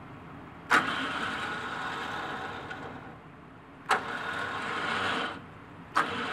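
Electric winch motor switching on with a sharp click and running for a second or two, three times. The winch is cycling tension on and off the synthetic winch line to set a Dyneema soft shackle's button knot hard.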